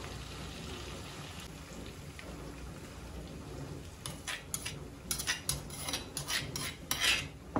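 Sambal of chillies and tomato sizzling in oil in a frying pan on a gas stove. About four seconds in, a run of sharp clicks and scrapes of kitchen utensils starts over the sizzle.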